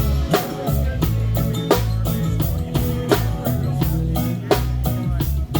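Live band playing an instrumental passage: a drum kit keeping a steady beat with bass drum and snare, under a bass line and guitar.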